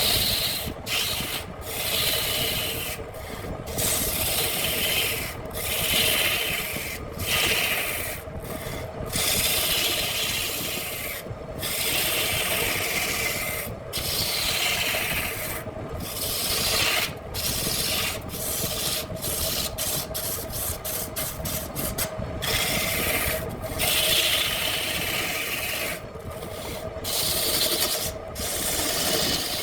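Wood spinning on a handmade lathe being shaped, a steady rasping scrape of tool or abrasive against the turning piece over a constant hum. The scraping comes in passes broken by brief sharp pauses every second or two.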